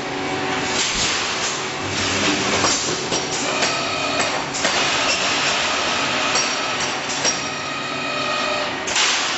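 Rebar mesh welding machine running, a steady mechanical clatter with irregular metallic clanks. A high steady tone comes in twice, for a second or two at a time.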